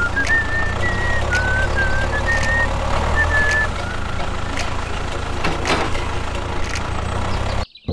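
Background music with a whistled tune over a steady low engine-like rumble; the tune stops about halfway through and everything cuts off abruptly just before the end.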